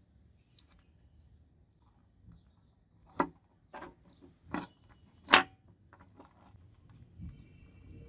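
Small steel padlock parts handled and set down on a wooden table: four sharp metallic clicks and taps, the last and loudest about five seconds in.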